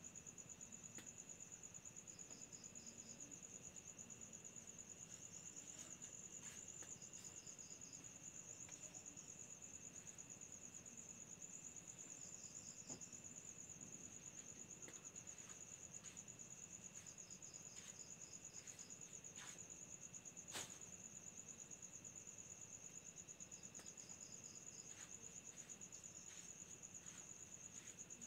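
Faint chorus of crickets: a continuous high-pitched rapid trill, with short chirp bursts from another insect every few seconds. A few light clicks, the sharpest about two-thirds of the way through.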